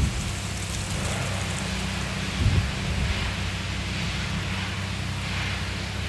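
Wind blowing across the microphone with a low rumble that gusts strongest about two and a half seconds in, over a steady hiss of wind in the leaves.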